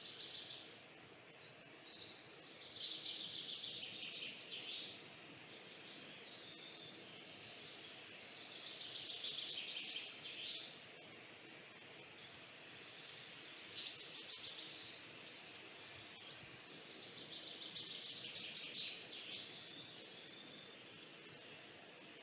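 A bird singing a short trilled phrase about every five seconds, each with a sharp high note, over a steady faint background hiss.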